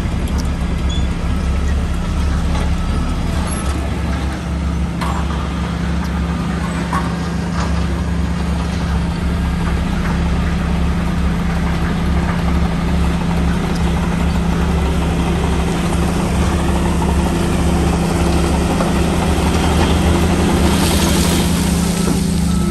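Shantui DH17C3 bulldozer's diesel engine running steadily with a deep hum, and a short hiss near the end.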